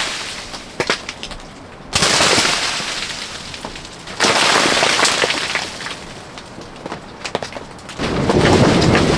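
Heavy clumps of snow sliding off overhanging trees and thudding onto a Circus TC+ poly-cotton tent, three times: at the start, about two seconds in and about four seconds in, each hit fading over a second or two. Near the end a steady gust of wind sets in against the tent.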